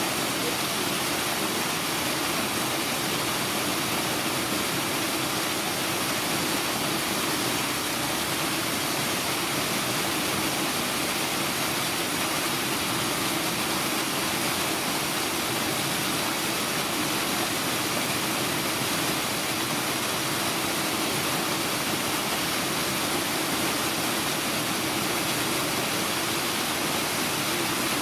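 Steady, unbroken rushing of water that holds an even level throughout.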